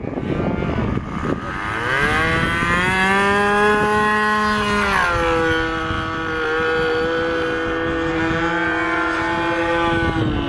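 Radio-controlled model airplane's motor and propeller running at high power during takeoff and climb-out. The tone rises in pitch over the first few seconds, falls sharply about halfway through, then holds a steady pitch.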